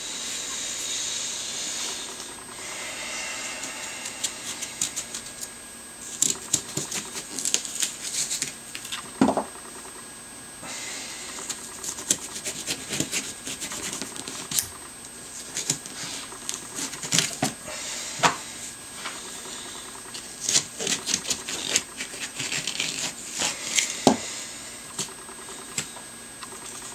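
Small hand carving tool scraping and shaving pumpkin flesh in quick, irregular strokes, with many short clicks as thin pieces are cut away; the strokes grow thicker after the first few seconds.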